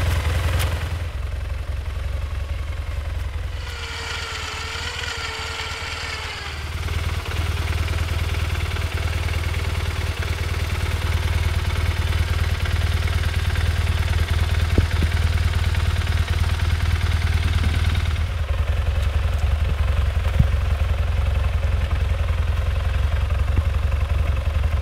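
BMW boxer-twin adventure motorcycle engine idling steadily. About four seconds in, a wavering higher tone sounds for a couple of seconds while the engine drops back.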